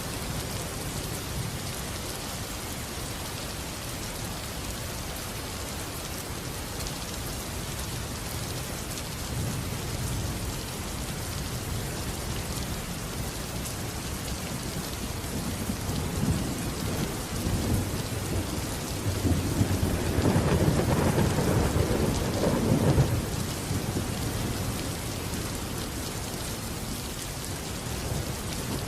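Steady heavy rain with thunder: a low rumble builds from about halfway through, is loudest a few seconds later, then fades back under the rain.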